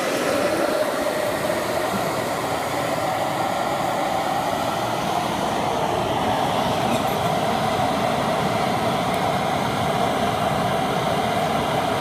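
Hair dryer blowing air through a pipe into a homemade coffee-can furnace, a steady loud rushing roar of the blower and the forced-draught fire, unchanging throughout.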